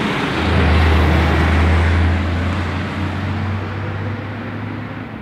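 A road vehicle passing close by: a low engine rumble and road noise that swell about half a second in, then fade away over the next few seconds.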